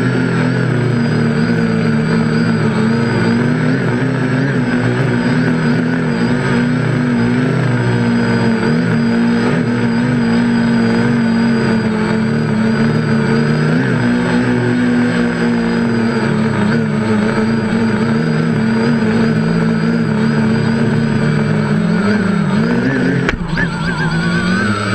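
Quadcopter's brushless outrunner motors and propellers running steadily in flight, heard close up from the frame as several close-pitched tones. Near the end there is a knock as it touches down, and the motor pitch dips and rises.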